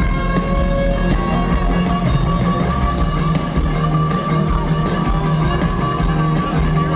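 Live rock band, loud, with an electric guitar lead playing long held notes over drums and bass.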